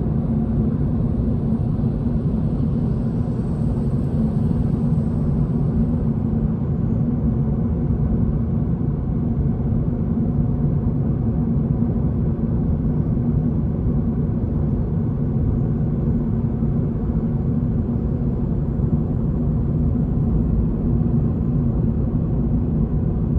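Toyota GR86's 2.4-litre flat-four engine and tyre noise heard from inside the cabin while driving, a steady low drone.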